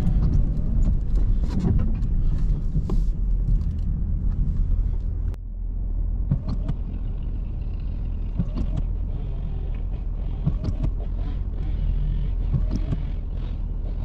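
Truck engine running with a steady low rumble and scattered light knocks and clicks. The sound changes abruptly about five seconds in.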